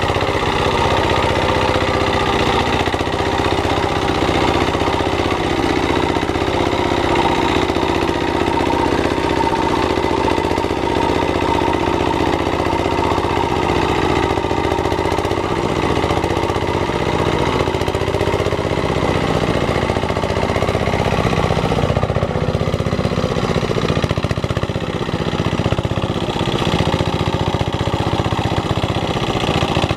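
Single-cylinder diesel engine of a two-wheel walking tractor running steadily under load as its cage wheels churn through flooded paddy mud.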